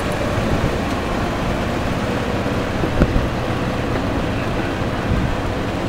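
Steady rumble of a slow-moving vehicle, with a single short knock about three seconds in.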